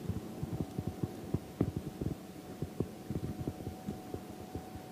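A quick, irregular run of dull low knocks and thumps, handling noise as a small white bass is swung aboard on a fishing rod and grabbed by hand, over a faint steady hum.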